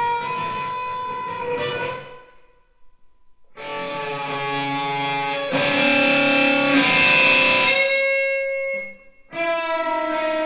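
Solo electric guitar playing sustained, ringing chords that start and stop abruptly, separated by short silences: one lasts about two seconds, a longer, louder one comes in after about three and a half seconds, and another starts just before the end.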